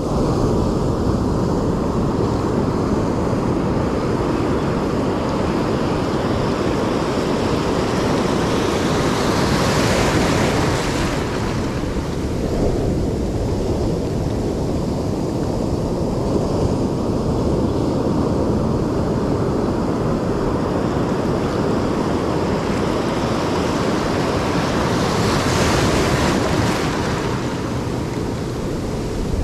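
Ocean surf washing around the legs, broken waves hissing and fizzing, swelling louder about ten seconds in and again near the end, with wind rumbling on the microphone.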